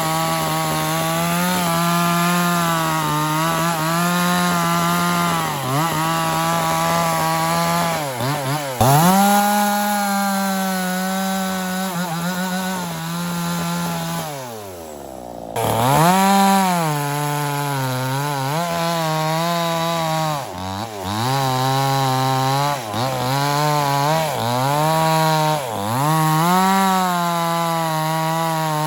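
Small petrol chainsaw cutting wood, engine held at high revs, its pitch sagging again and again as the chain bites in under load and recovering between cuts. About fourteen seconds in it drops back briefly, then revs up again.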